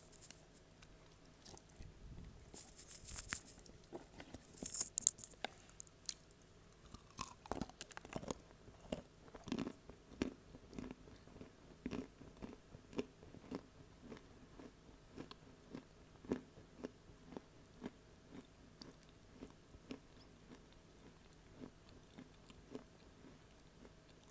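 Close-miked biting and crunching of pieces of edible clay, with several sharp crackling crunches in the first half. These give way to steady, regular chewing.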